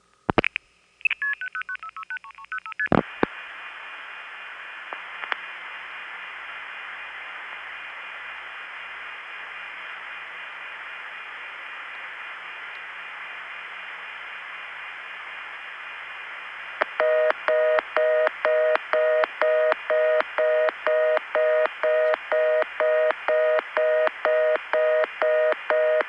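Recorded long-distance telephone call heard over the line. There is a click, then a quick burst of multifrequency signalling tones as the digits are sent ahead, then a long stretch of steady line hiss. About two-thirds of the way in, a fast-pulsed tone comes on, beating about twice a second: the reorder (fast busy) signal, meaning the call did not go through.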